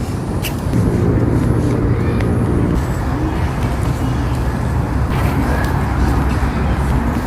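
Road traffic: a motor vehicle's engine humming over a steady low road rumble, the hum strongest in the first half.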